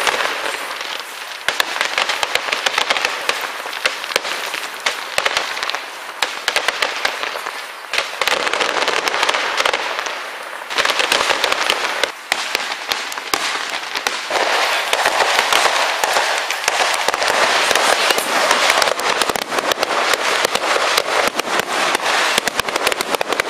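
Aerial fireworks display: a rapid, continuous string of crackles and bangs, thickening into a denser, louder crackle from about eleven seconds in.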